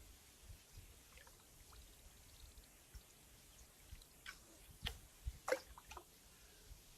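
Faint water trickling, with a few short knocks about four to six seconds in.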